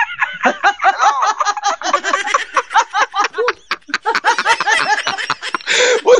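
Men laughing hard together in quick repeated bursts, with a short lull a little before four seconds in.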